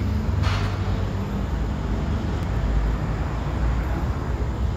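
Steady outdoor background noise dominated by a low, fluctuating rumble, with a brief swish about half a second in.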